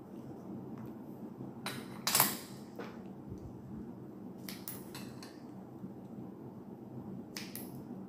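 Scissors snipping away excess acrylic double-sided tape on the back of a resin bird decoration: a few short cuts and rustles of the tape, the loudest about two seconds in, over a faint steady room hum.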